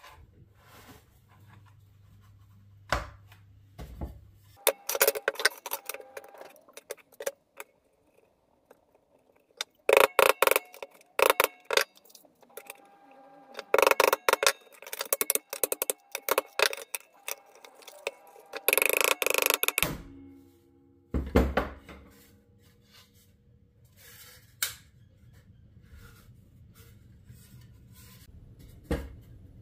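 Irregular clattering, tapping and knocking of hard objects being handled, in uneven clusters, with a denser rasping burst about two-thirds of the way through.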